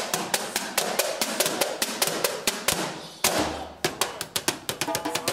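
Hand drumming on the round wooden seats of bar stools: a quick, rhythmic pattern of sharp slaps and knocks from palms and fist. A brief noisy rush comes about three seconds in.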